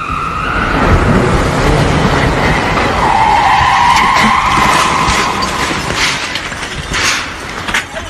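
Brick chimney collapsing: a loud, rising rush of falling masonry and a blast of dust and rubble that holds for several seconds, then eases, with sharp knocks of debris landing near the end.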